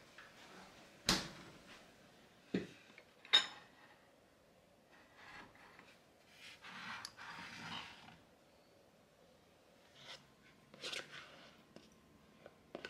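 Kitchen handling sounds from glass storage jars being taken off a wooden shelf and set down. There are three sharp knocks in the first few seconds, a soft scraping rustle in the middle, and a few lighter clicks and knocks near the end.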